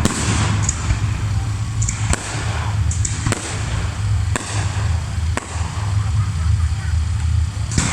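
Fireworks salute going off: a series of sharp bangs, roughly one every second or so, with crackling from the bursting shells between them and a low rumble underneath.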